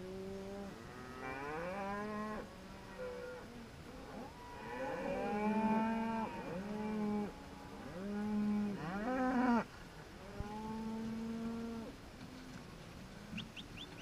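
Beef cattle, red and black Angus cows with calves, mooing again and again, several long calls overlapping and sliding up and down in pitch; the calling stops about two seconds before the end.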